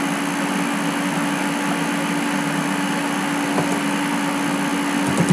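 Steady background hum and hiss, with one unchanging low tone, like a fan or air conditioner running.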